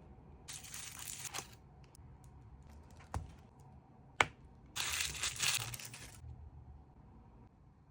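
L.O.L. Surprise doll packaging being unwrapped by hand: two bursts of crinkling and tearing plastic wrap, with two sharp clicks between them, the second one the loudest.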